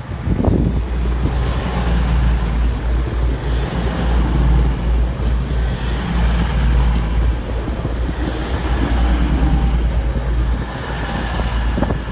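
A train passing through a station, a loud steady rumble, with wind buffeting the microphone.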